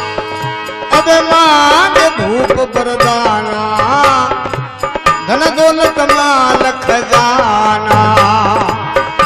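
Devotional bhajan music: a man singing a long, ornamented melodic line without clear words, accompanied by harmonium and hand-drum strokes.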